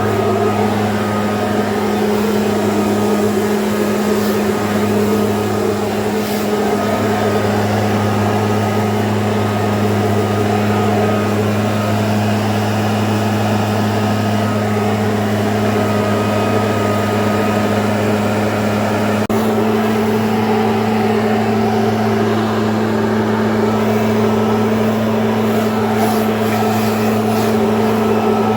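A motor running steadily with a constant hum; its pitch steps up slightly about two-thirds of the way through.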